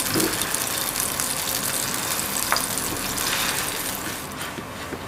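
Roti canai dough sizzling and crackling in hot margarine in a nonstick frying pan, with a few light knocks as a wooden spatula presses it flat. The sizzle eases a little near the end.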